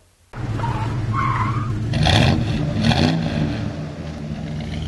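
Car engine sound effect under a title card: the engine runs hard with a brief tire squeal about a second in, then louder rushes of engine noise about two and three seconds in, fading at the end.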